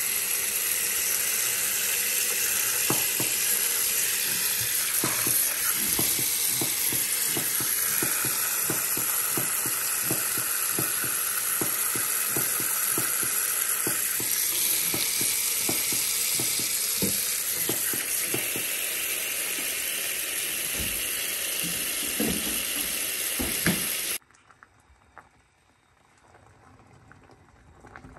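Tap water running in a steady stream onto mussels in a plastic colander in a stainless steel sink, with many clicks of the shells knocking together. About 24 seconds in it cuts off suddenly to the much quieter bubbling of a saucepan of mussels boiling.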